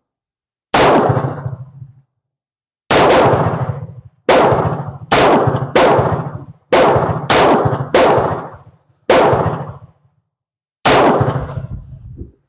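A string of about ten pistol shots fired one at a time, spaced unevenly from about half a second to two seconds apart, each with a short decaying tail.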